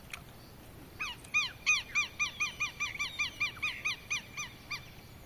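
A bird calling: a rapid series of about seventeen sharp, arched, harsh notes, about four or five a second, that spaces out slightly near the end.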